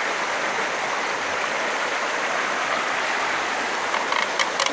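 Fast-flowing rocky stream rushing over shallow rapids, a steady wash of water noise. A few short, light knocks come near the end.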